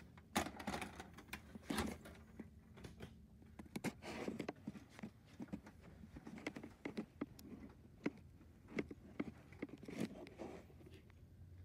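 Irregular clicks, knocks and rustles of a VHS cassette being handled and pushed into a VCR, over a faint steady low hum.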